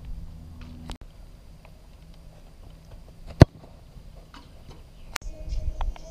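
A football kicked hard in a shot: one sharp thud about three and a half seconds in.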